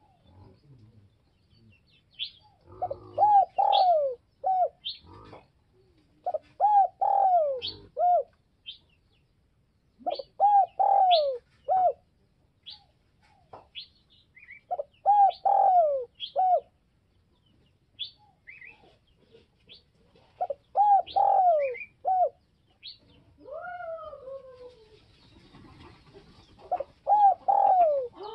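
Spotted dove cooing its short phrase of three or four notes, repeated about six times a few seconds apart. Short high chirps are scattered between the phrases.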